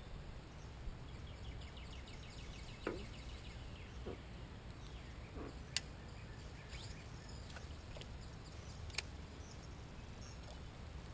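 Wild songbirds chirping and trilling over a steady low rumble, with a few sharp clicks, the loudest about six seconds in and again near nine seconds.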